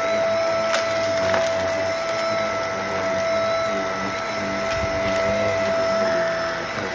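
Vacuum cleaner running with a steady motor whine while sucking crunched food crumbs off a rug, with a few sharp crackles and ticks as crumbs are drawn into the nozzle.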